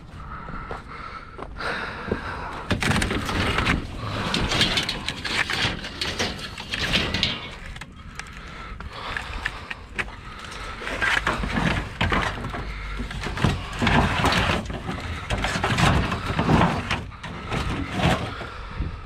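Scrap metal being handled: irregular clanks, knocks and rattles as pieces are moved and dropped.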